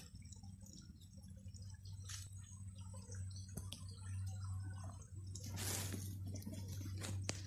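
Faint rustling and light clicks of hands gathering duck eggs from a straw-and-sacking nest and setting them into a plastic basket. A louder rustle comes a little past the middle, over a steady low hum.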